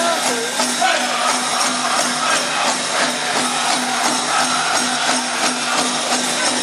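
Powwow drum song for a chicken dance: a big drum beaten in a steady beat with voices singing, and the jingling of the dancers' leg bells.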